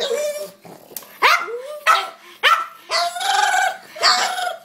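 A pug making a string of about six short, high yapping barks and yowls, one drawn out about three seconds in, as it waits eagerly for its food.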